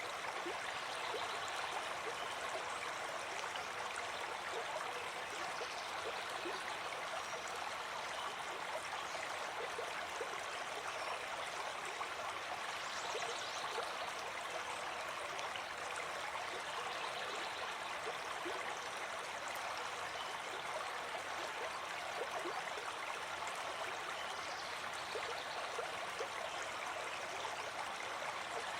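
Running water flowing steadily, an even rushing stream sound with no breaks.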